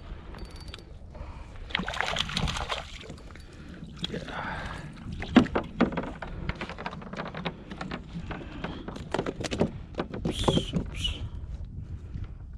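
Irregular knocks and clatter of handling on a kayak, with splashing water, as a hooked whiting is brought in and landed; a short high squeak near the end.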